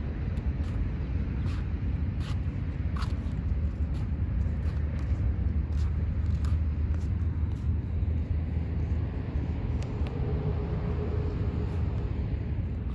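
Steady low outdoor rumble, with a few faint light clicks scattered through it.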